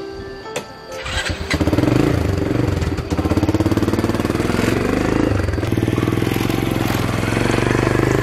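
Small motorbike engine starting after a few sharp clicks, about a second and a half in, then running with a rapid putter, its pitch rising and falling a few times as it is revved.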